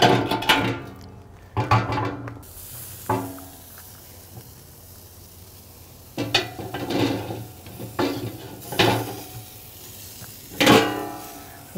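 Metal clanks and rings from a steel Pit Barrel Cooker drum smoker as its steel rebar rods and lid are handled and set back in place. There are several separate clanks, with a quieter stretch in the middle.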